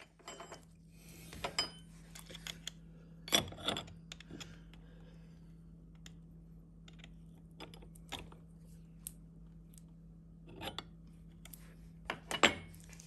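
Scattered light metallic clinks and clicks of a spanner and metal parts being handled as a brass spindle nut is fitted on a mini lathe's spindle. The two loudest come about three seconds in and near the end, over a steady low hum.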